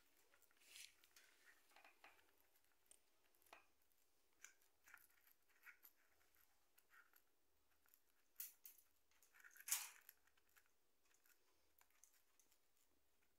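A rosy-faced lovebird chewing and shredding a cardboard tube with its beak: irregular small crunching and tearing snips, with two louder rips about eight and a half and ten seconds in.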